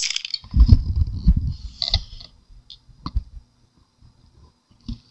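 Handling noise as things are moved about on a table: low bumping and rubbing for about a second and a half, then a few sharp clicks and taps.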